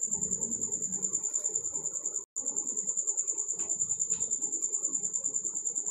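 A cricket chirping in a steady, high-pitched pulsing trill, about ten pulses a second. The sound cuts out completely for a moment a little over two seconds in.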